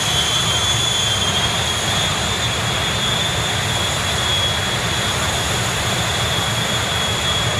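Jet truck's jet engine running steadily in place with its afterburner lit: a dense rumble with a high, steady whine over it.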